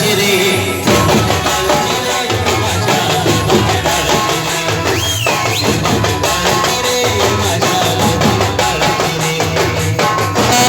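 Live Marathi band music: drums and percussion keeping a steady, repeating beat under the melody.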